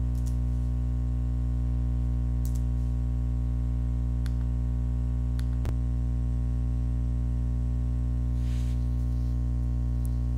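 Steady electrical mains hum with a buzzy stack of overtones. A few faint clicks are scattered through it, the sharpest a little past halfway.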